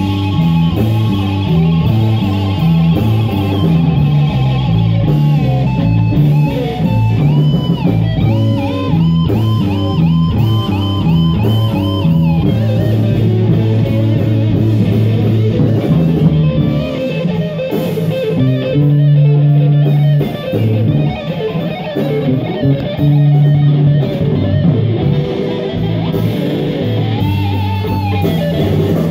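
Small live rock band playing: electric guitars over a drum kit, with a stepping low line. About a third of the way in, a lead guitar plays a run of bent notes that rise and fall.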